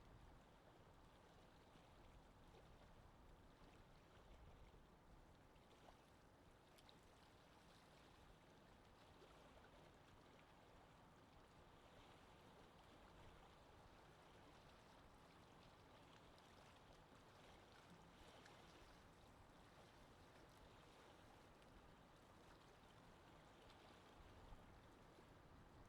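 Near silence: a faint, steady watery hiss of underwater ambience.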